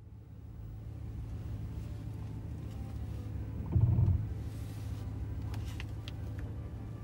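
5.7-litre Hemi V8 of a Ram 1500 pickup idling, heard from inside the cab as a steady low hum. About four seconds in there is a brief louder rumble, and a few faint clicks come near the end.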